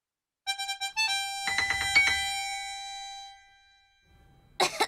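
A short chime-like music cue: a few quick bell-like notes, then held ringing tones that fade away over about two seconds. A child coughs near the end.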